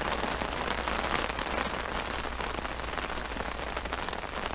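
A heavy rain shower falling steadily on a tent, a dense, even rush of drops.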